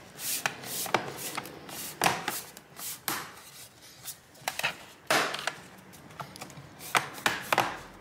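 Laptop bottom cover being pressed down onto the chassis, its retaining clips snapping into place one after another: a series of sharp clicks at irregular intervals.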